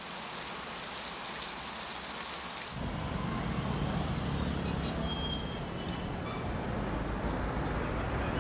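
Street traffic: a steady low rumble of passing cars and motorcycles that sets in abruptly about three seconds in, after a thin high hiss.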